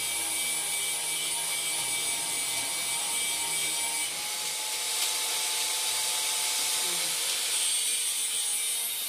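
Steady high-pitched hiss with faint steady tones beneath it, unchanging throughout.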